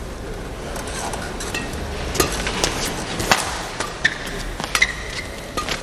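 A badminton rally: sharp cracks of rackets striking the shuttlecock, about one a second, with short squeaks of shoes on the court floor over a steady crowd murmur.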